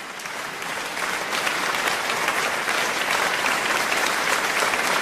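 Audience applauding, swelling over the first second and then steady.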